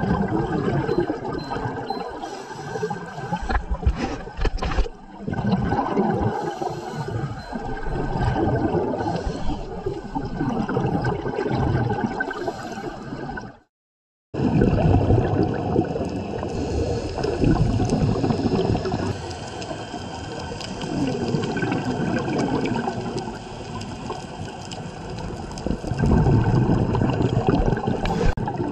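Underwater gurgling and bubbling from scuba divers' regulator exhaust bubbles, heard through the camera housing as a dense, churning water noise. It breaks off completely for about half a second midway.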